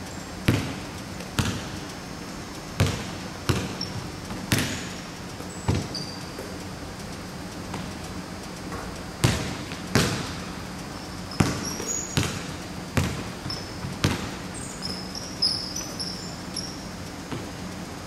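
Basketballs bouncing on a hardwood gym floor, about a dozen sharp impacts that ring in the large hall. Short high squeaks of sneakers on the court come in the second half.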